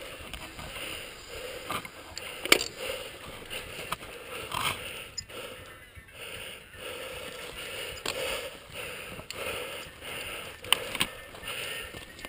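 Mountain bike riding over a dirt singletrack: tyres crunching on the dirt and the bike rattling, with sharp knocks from bumps about two and a half seconds in and twice close together near the end.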